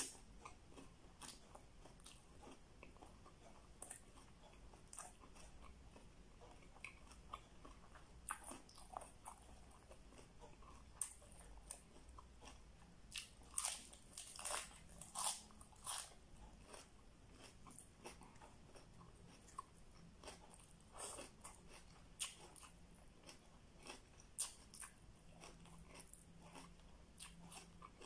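A person chewing and biting food close to the microphone: faint chewing with scattered crisp crunches, a thick run of them about halfway through and a few more later.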